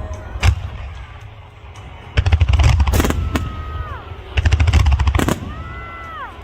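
Fireworks finale: a single bang, then two dense volleys of rapid crackling reports, each lasting one to two seconds. After each volley a held high tone falls away at its end.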